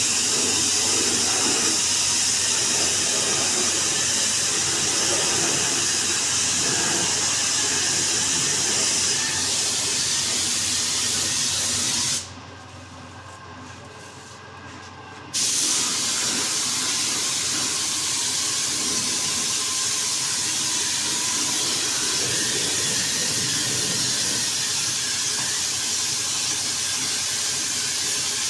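Compressed-air paint spray gun with a suction-feed cup hissing steadily as it sprays paint on a door. The hiss stops for about three seconds about twelve seconds in, then starts again.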